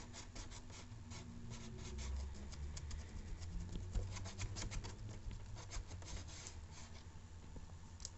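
Handling noise from a handheld camera: many small rubbing, scratchy clicks over a low rumble.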